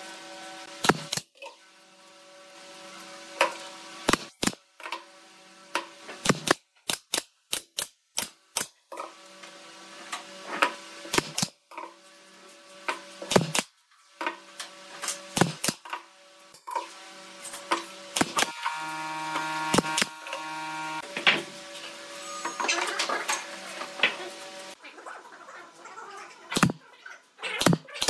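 Pneumatic nail gun firing again and again into wooden slats, sharp single shots at irregular intervals, sometimes several in quick succession.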